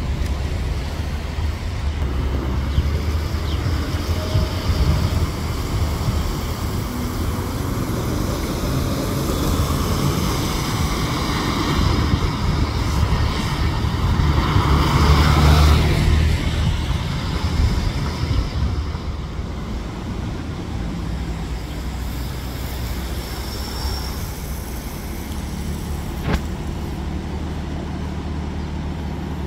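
City street traffic with buses and cars driving past. A louder vehicle pass swells and fades about halfway through, and a diesel city bus engine runs with a steady low hum near the end. There is one sharp click shortly before the end.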